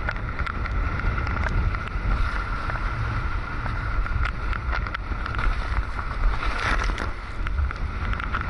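Wind rumbling on the microphone and water rushing past the hull of a Hobie 16 catamaran sailing at about 20 mph, with scattered sharp ticks and a thin steady whistle.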